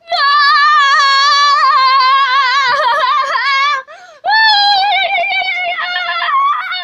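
A high-pitched voice holding long, wavering sung notes: one of nearly four seconds, a short break, then another of about two seconds.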